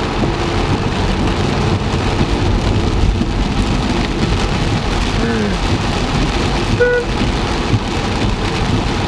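Heavy rain drumming steadily on a car, heard from inside the moving car with its low road rumble underneath. There is a brief beep about seven seconds in.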